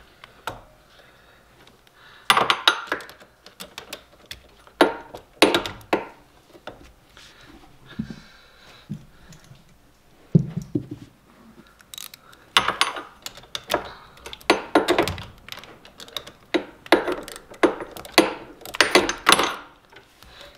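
Metal hand tools, a wrench and pliers, working on the brake cable clamps: irregular clicks and clanks of metal on metal in bursts, with a duller thunk about ten seconds in and a busier run of clicking near the end.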